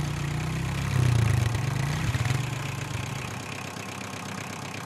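Engine sound effect running steadily at low revs. It swells about a second in and grows quieter from about two and a half seconds in.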